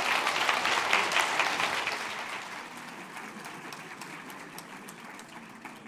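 Audience applauding, loudest over the first couple of seconds and then slowly dying away.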